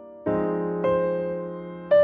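Background music: a slow melody on an electric piano or keyboard, three notes struck and left to fade.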